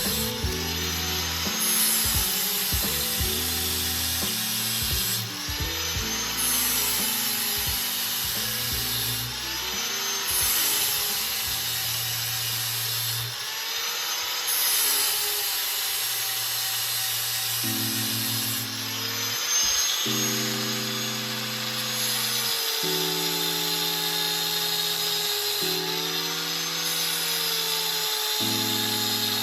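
A power grinder sharpening a steel mower blade: a steady grinding hiss, mixed with background music that has held bass notes changing every second or so.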